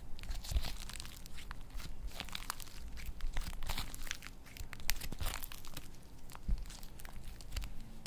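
Slime being squished and stretched by hand, with dense, irregular crackling clicks and pops as air pockets in the slime burst.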